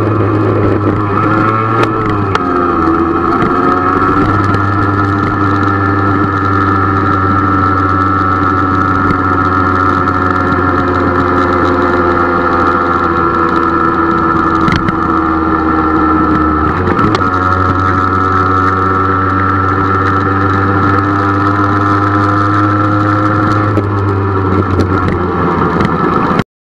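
Motorcycle engine running as the bike rides along, heard from on board. The engine note dips and shifts about two seconds in and again around seventeen seconds, and the sound cuts off abruptly at the end.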